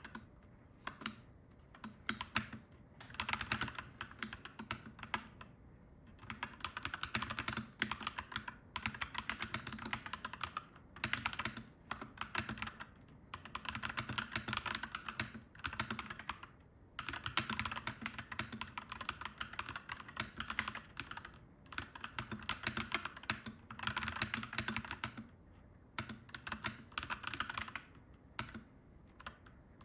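Fast typing on a clacky mechanical keyboard: quick runs of key clacks a second or two long, broken by short pauses.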